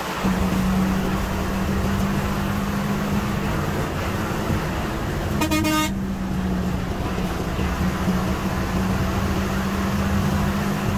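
Steady drone of a moving bus's engine and road noise heard from inside the cabin, with a single horn blast of about half a second a little past the middle.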